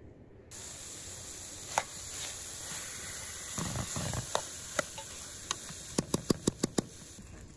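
Chicken pieces frying in tomato paste in a pan, sizzling steadily from about half a second in, while a metal spoon stirs and clinks against the pan. Near the end comes a quick run of about six clinks.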